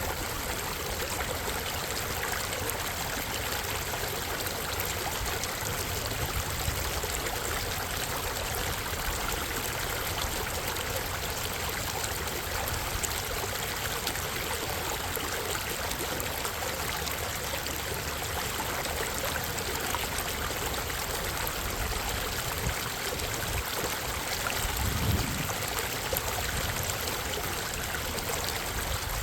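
Minnehaha Creek's water rushing steadily over rocks, with a brief low rumble near the end.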